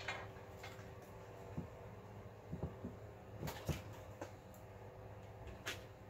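Network cables being pulled and handled among other equipment: a scattering of light clicks and knocks, the sharpest about halfway and near the end, over a steady low hum.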